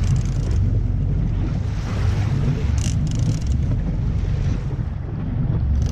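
Wind buffeting an action-camera microphone on a boat at sea, a steady rough low rumble, with a brief hiss about three seconds in.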